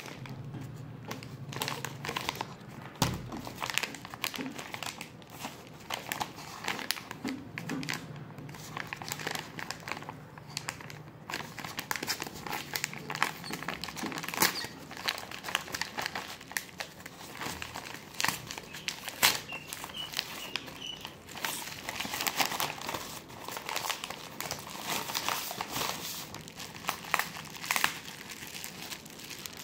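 A brown paper courier envelope is torn open and crumpled by hand, and a bubble-wrapped package is handled. The crinkling and crackling is irregular and continuous, with a few sharper crackles standing out.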